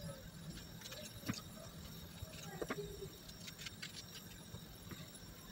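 Faint knife-and-hand sounds of raw zucchini being split lengthwise on a wooden cutting board, with a few soft knocks and scrapes.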